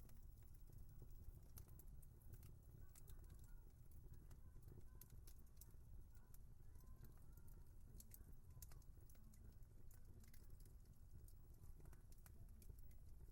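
Faint wood fire crackling: irregular sharp pops and snaps over a low, steady rumble of the burning logs.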